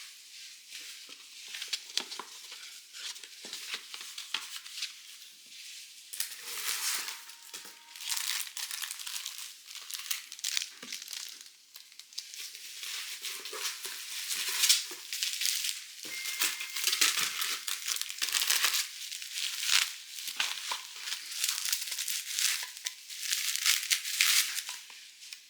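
Packaging crinkling and rustling as stationery items are unwrapped and handled, with many small clicks and rustles in uneven swells.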